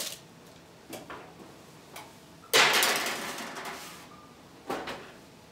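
Oven door opened and a metal baking sheet slid onto the oven rack: a sudden loud scraping rattle about two and a half seconds in that fades over a second or so. Then a sharper knock near the end as the oven door shuts.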